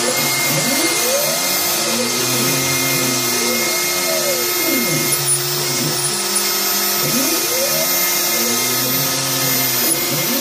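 Home-built CNC router milling wood: its stepper motors whine in repeated rising and falling glides as the axes move, over the steady hiss of the spindle.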